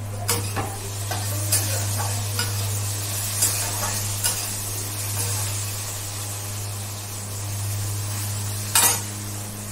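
Fish-cutting scissors being sharpened: repeated scraping strokes of the steel blade over a steady rasping hiss, with a louder scrape near the end and a steady low hum underneath.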